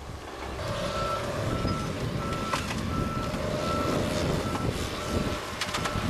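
Backup alarm of a forestry forwarder beeping about twice a second, over the low rumble of the machine's diesel engine, with a steady whine for the first few seconds.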